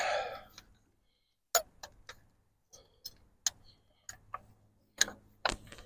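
Scattered sharp clicks and taps, about ten in four seconds, starting after a second of silence: old, stiff spark plug wires and ignition parts on a 1964 Farmall Cub engine being fitted back on by hand.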